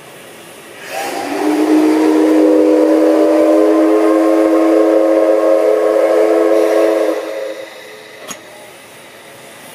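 C61 class steam locomotive's steam whistle blowing one long blast of about six seconds. It opens with a rush of steam, settles into several steady tones sounding together, and dies away. A single sharp click comes shortly after.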